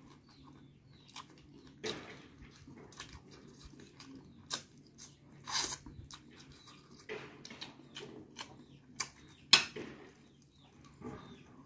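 Wet chewing, lip smacks and sucking clicks from eating saucy chicken feet and rice by hand. The sounds are short and irregular, with one sharp, louder smack about nine and a half seconds in.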